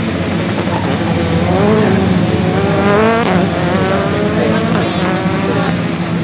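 Rally car engine at full revs on a circuit stage, its pitch climbing and falling a few times as it accelerates and lifts, over a steady low drone.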